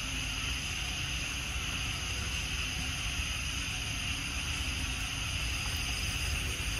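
Steady outdoor background noise: a low rumble of wind on the microphone under a steady high hiss, with no distinct animal calls.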